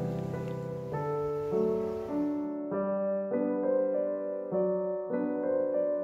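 Background piano music: a gentle tune with a new note or chord about every half second. A faint hiss lies underneath and cuts off about two and a half seconds in.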